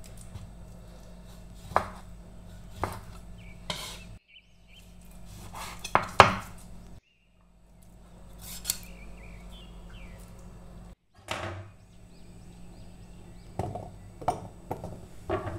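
A knife slicing through raw salmon fillet and knocking now and then on a bamboo cutting board, a few separate strokes. Near the end come several clinks as pieces of ginger and garlic are dropped into a steel grinder jar.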